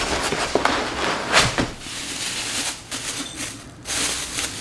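Plastic and foam packing material rustling and crinkling as a ceramic vase is unpacked from a cardboard box and pulled out of its plastic bag, with a few sharper crackles, the loudest a little over a second in.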